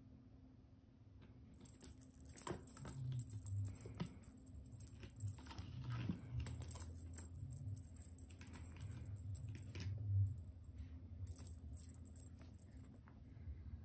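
A kitten's claws scratching and scrabbling at a sisal-rope scratching post: quiet, irregular scratches and small clicks and taps as it swats and grips the post.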